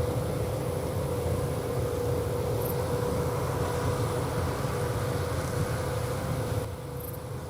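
John Deere 8000R tractors pulling Amadas peanut pickers, running steadily in the field: a low rumble with a steady hum. The sound drops in level shortly before the end.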